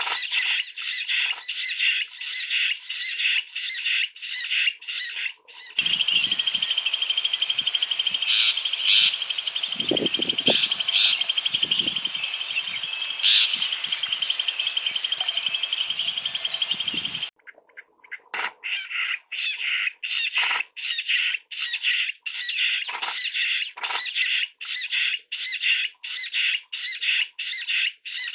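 Jungle bush quail calling: a fast, even series of short repeated notes, about two to three a second. In the middle, for about eleven seconds, the notes give way to a steady high-pitched trill with a few louder notes over it.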